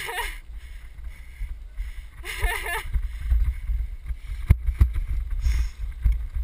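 Wind buffeting a helmet-mounted camera's microphone while on the move: a steady low rumble with irregular knocks, one sharper knock about four and a half seconds in.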